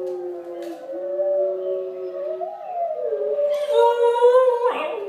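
Wolves howling in long, overlapping held notes played through a computer's speakers; about three and a half seconds in, a Pembroke Welsh Corgi puppy joins with her own louder, wavering howl.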